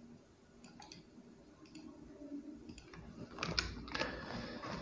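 Faint keystrokes on a computer keyboard: scattered soft clicks, coming thicker in the last second and a half.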